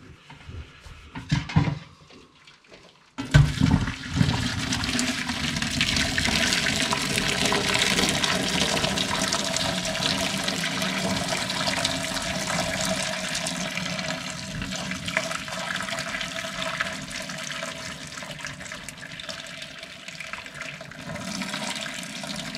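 A few knocks, then water pouring into a sink, starting suddenly about three seconds in and slowly easing. This is the boiling water being drained off a pot of spaghetti.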